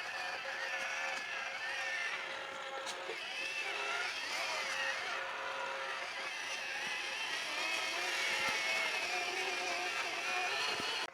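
Radio-controlled model construction vehicle running: a whine from its small electric motors and gears that rises and falls in pitch as it is driven, cutting off abruptly at the end.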